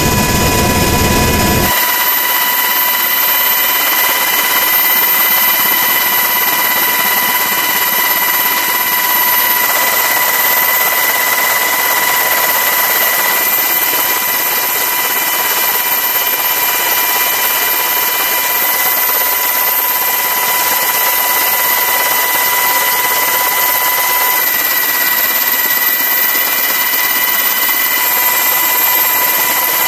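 Aircraft turbine engine whining steadily: a high, even whine of several tones over a hiss, with little low rumble. The whine shifts slightly a couple of times near the end.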